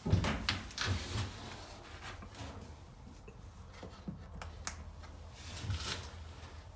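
Scattered light knocks, clicks and rubbing, most of them in the first second and a few more around four to six seconds in, over a faint steady low hum.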